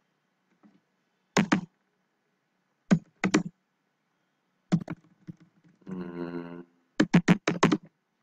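Computer keyboard typing in short bursts of loud key clicks as search words are entered, with a quick run of about five keystrokes near the end. Around six seconds in, a brief hummed voice sound.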